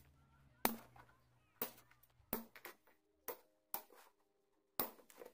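Hobby side nippers snipping plastic model-kit parts off the runner: a series of sharp, short snips at irregular intervals, roughly one every half-second to second.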